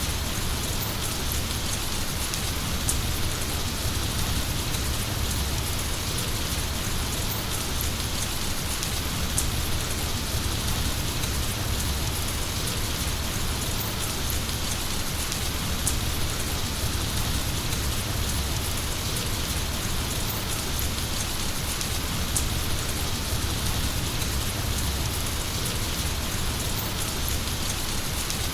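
Heavy rain falling steadily, a dense even hiss of drops with a few sharper drip ticks.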